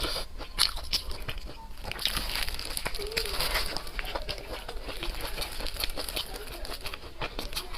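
Close-miked eating sounds: chewing with many small crunchy clicks and crackles.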